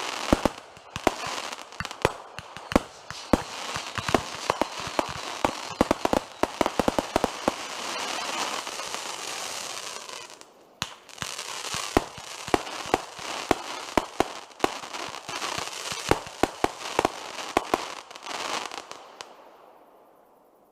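Fireworks going off in rapid succession: many sharp bangs over continuous crackling. There is a brief lull about ten seconds in, and the sound fades away near the end.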